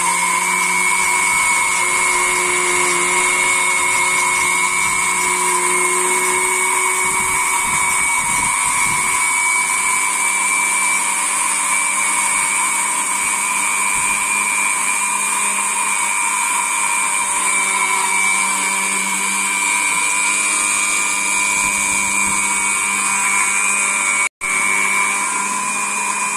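Small electric spice grinder running steadily at full speed, grinding whole dried coriander seeds, with a steady high motor whine. There is a split-second break near the end.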